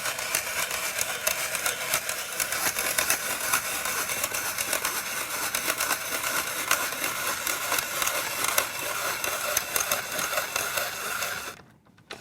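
A hand-cranked spiralizer cutting a carrot into spirals: a steady crunching and rasping full of small clicks, which stops suddenly near the end.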